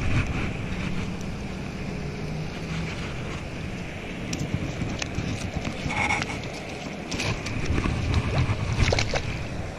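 Wind buffeting the microphone in a steady rumble, with scattered light clicks and knocks from handling the gear in the second half.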